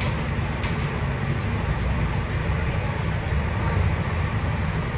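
Inside a MAN NL323F city bus while it drives along: a steady low drone from its six-cylinder diesel engine and drivetrain, mixed with road and tyre noise. A single brief tick comes about half a second in.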